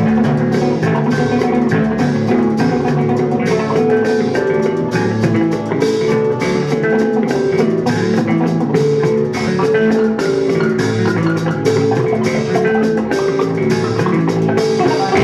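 Instrumental rock trio playing live: electric guitar and bass carrying repeating pitched notes over a drum kit with frequent, steady drum and cymbal hits.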